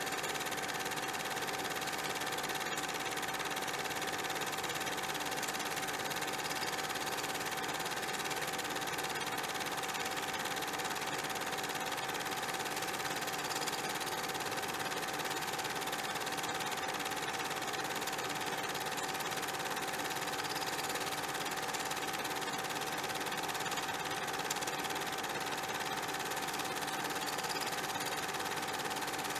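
Steady hiss with a constant thin high hum and no music: the background noise of a silent film's soundtrack.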